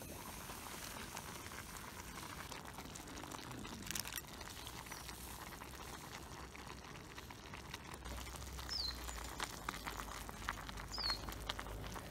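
Water boiling in an aluminium camp pot, a steady bubbling hiss. From about two-thirds of the way in come quick irregular clicks and taps as instant ramen noodles cook and are stirred with chopsticks, with two short high chirps near the end.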